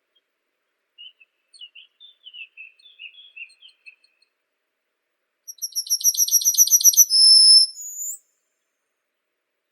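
Songbird singing: a run of soft twittering chirps, then a louder rapid trill of about a dozen high notes that grows louder and ends in two longer, higher whistled notes.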